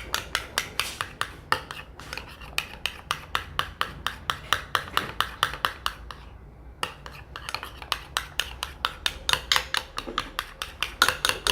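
A utensil stirring thickening glue slime in a container, knocking and scraping against its sides about four times a second, with a brief pause about six seconds in.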